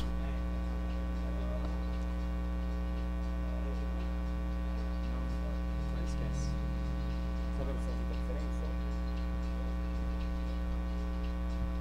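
Steady electrical mains hum: an unchanging buzz with many evenly spaced overtones.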